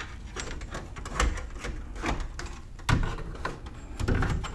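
A metal wire snake being pushed down through a hole in the vehicle roof into the headliner, clicking and scraping against the roof and trim, with three louder knocks along the way.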